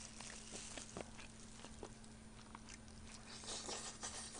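Faint eating sounds close to the microphone: soft chewing and small wet mouth clicks, with a bite into a piece of bone-in braised chicken near the end.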